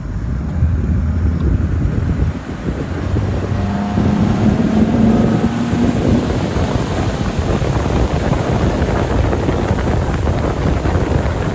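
Heavy wind buffeting the microphone over a boat motor running, its pitch rising slightly about four seconds in.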